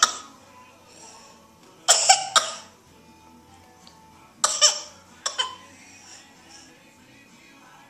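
A young child coughing in short bouts: one cough at the start, a quick run of three about two seconds in, and two more a little past the middle.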